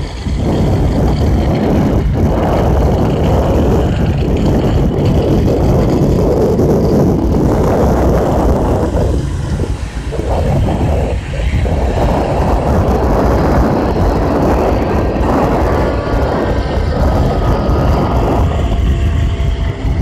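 Distant rocket launch rumbling: a loud, low, continuous roar that swells and dips, briefly easing about ten seconds in.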